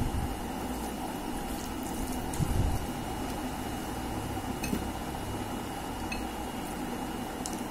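Wet squishing of rice and chicken curry being kneaded by hand on a plate, with chewing and small soft clicks. Under it runs a steady low hum with a faint high whine.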